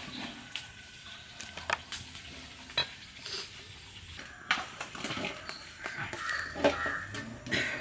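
Metal kitchen bowls and utensils clinking and knocking as they are handled, with irregular sharp clanks among quieter rustling.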